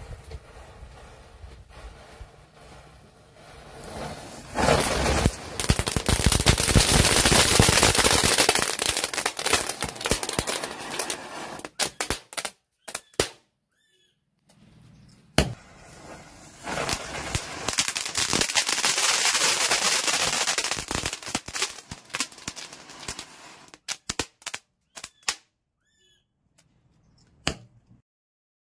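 Diwali firecrackers going off in two long runs of rapid, crackling bangs mixed with fizzing, each lasting several seconds, with a single sharp crack between them. A few scattered single bangs follow near the end.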